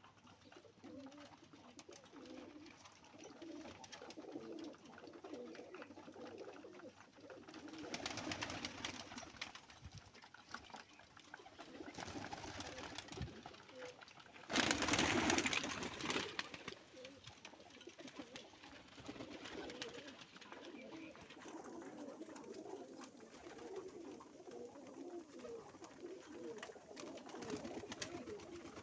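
A flock of domestic pigeons cooing, many overlapping low coos going on all the time, with a brief loud burst of noise about halfway through.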